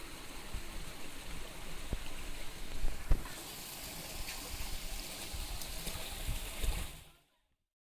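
Running water of a forest stream, a steady hiss, with a few short low knocks; it fades out about seven seconds in.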